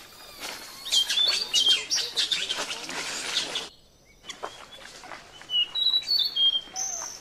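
A baby macaque gives high-pitched squeaks and chirps in two spells, about a second in and again near six seconds, with scuffling in dry leaves. The squeaks are the baby begging to nurse. The sound breaks off abruptly just before four seconds.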